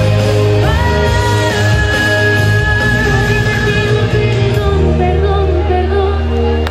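Two women singing into microphones over loud amplified backing music with a steady bass, holding one long note for a couple of seconds early on.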